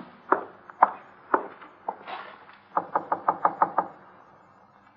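Radio-drama sound effects: four footsteps climbing stairs at about two steps a second, then, nearly three seconds in, a quick run of about eight knocks on a door.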